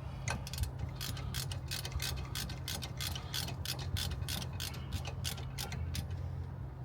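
Ratchet wrench clicking in a quick, even run of several clicks a second as it does up a brake caliper bolt, stopping shortly before the end.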